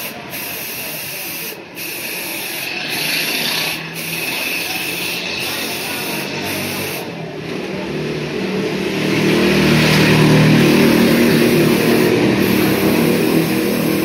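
Motorcycle wheel hub spinning on a motor-driven shaft: a steady hiss over a low hum, growing louder and deeper about eight seconds in.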